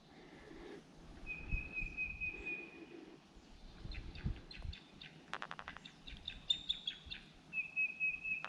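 Wild songbirds singing: an even, high, dry trill about a second and a half long, heard twice, with another bird's run of short, sharp, squeaky notes in between. Low soft thumps sound underneath.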